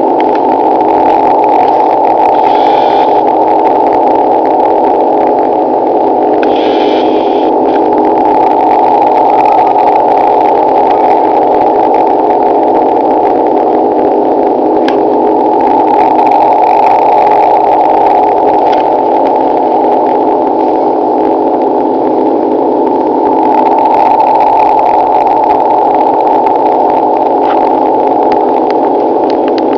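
Strange noise on a shortwave signal at 9.803 MHz, heard through a ham radio receiver in sideband or CW mode: a steady, loud drone made of many close tones, with no voice in it. It is a strong signal, and the operator later suspected it might have been a transmission from the HAARP high-power HF array in Alaska.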